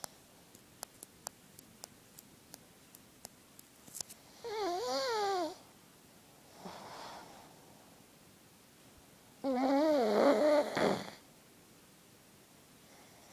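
Pug snoring in its sleep: two long snores with a wavering pitch about five seconds apart, the second louder, with a softer breath between them. A few faint ticks sound in the first four seconds.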